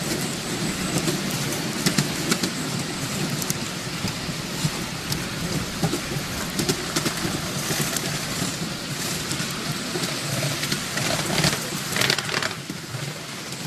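Miniature railway passenger train running along the track, heard from a riding car: a steady rumble of wheels on rail with many sharp clicks and rattles, a louder burst of clatter about eleven to twelve seconds in.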